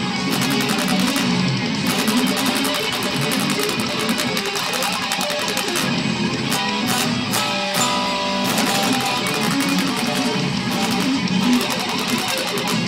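Electric guitar playing fast, intricate progressive-metal riffs, with a few held notes ringing out about halfway through.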